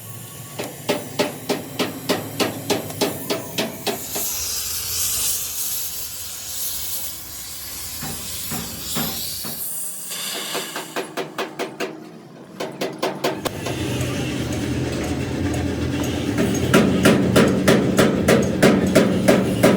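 Hammer striking metal in runs of quick, evenly spaced blows, about three or four a second, with a spell of hissing between the first and second runs.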